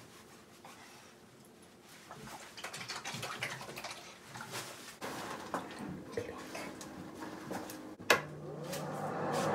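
Sponge wiping olive oil over a bathtub's surface, with light rubbing and a few small knocks. Near the end a sharp click, then a steady hum with a rushing noise begins.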